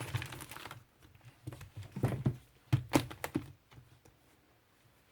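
Small items being handled on a tabletop: a quick run of clicks and light knocks over the first three and a half seconds, then quiet.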